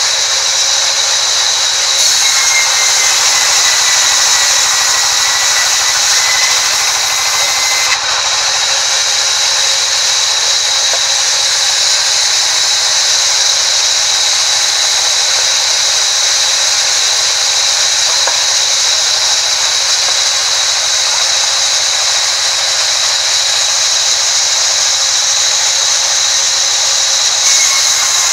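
Band sawmill's blade ripping a large timber plank lengthwise: a loud, steady high-pitched whine over the hiss of the cut.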